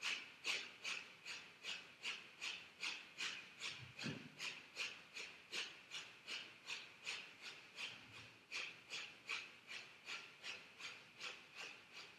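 A woman doing breath of fire: quick, forceful exhales through the nose in a steady rhythm, about three a second.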